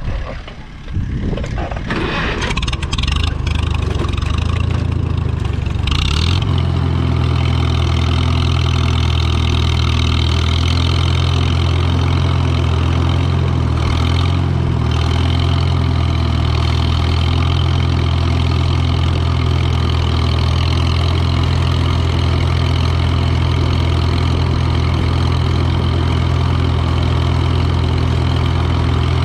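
A vehicle engine is started and, after a few unsteady seconds, settles into a steady run for the rest of the time.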